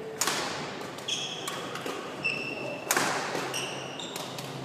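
Badminton rackets striking the shuttlecock: sharp cracks just after the start, about a second in and about three seconds in, echoing round the hall. Short rubber-soled shoe squeaks on the wooden court come between the hits.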